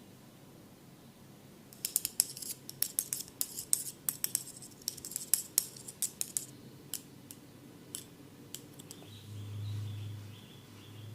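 Barber's scissors snipping rapidly, a quick run of crisp metallic snips, then a few single snips. A low hum swells near the end.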